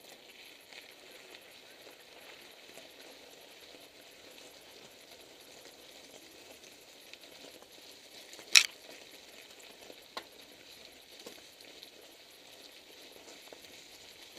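Mountain bike tyres rolling and crunching over a gravel path, a faint steady hiss. About eight and a half seconds in there is one sharp, loud clank, and a smaller knock about ten seconds in.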